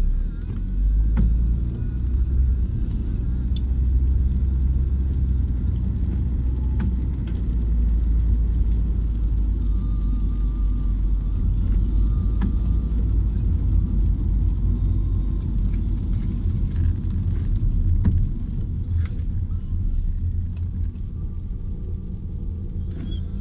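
Steady low rumble of a car's engine and tyres heard inside the cabin while driving on a wet road, with scattered faint ticks.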